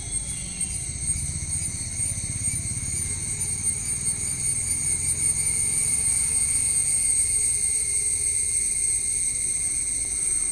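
Steady, high insect chorus of crickets or cicadas, with a low rumble underneath that swells through the middle.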